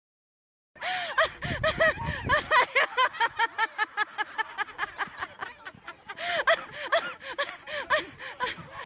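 A voice giving a fast run of short chirping sounds, about five a second, starting just under a second in and running on.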